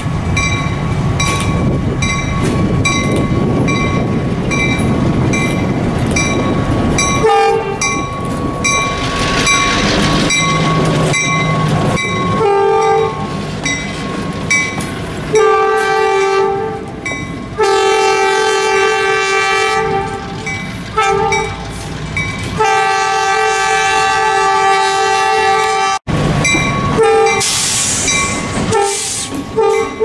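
Ex-Union Pacific MP15AC diesel switcher rolling past with a low rumble and a repeated ringing of its bell, then sounding its horn in a string of blasts of differing lengths. After a sharp break, a train horn sounds again near the end.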